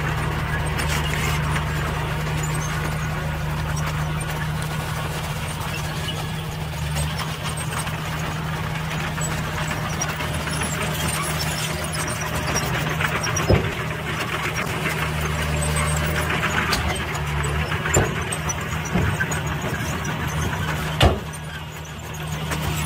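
A 5-ton dump truck's diesel engine running steadily while its tipper bed is raised and the load of soil is dumped, with three sharp knocks in the second half.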